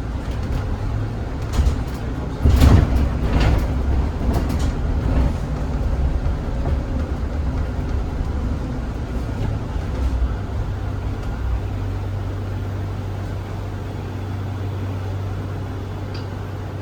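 Zhongtong hybrid range-extender city bus heard from inside: low rumble with several knocks and rattles about two to five seconds in, settling into a steady low hum from about twelve seconds.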